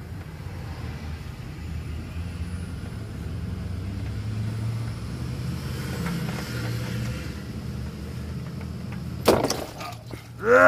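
A low steady rumble underneath while a spin-on oil filter is turned off by hand. Near the end, one sharp knock, then a short vocal exclamation as the filter comes free and oil runs out.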